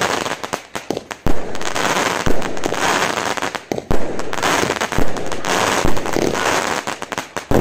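Majestic Fireworks Magnum Force 24-shot Category 2 fireworks cake firing. A sharp bang comes roughly once a second as each shot bursts, with dense crackling from the bursting stars in between.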